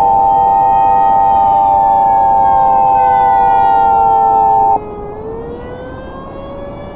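A loud steady electronic alert tone over a wailing civil-defense siren. The alert tone cuts off sharply about five seconds in, leaving the siren, whose pitch slowly falls and then climbs again.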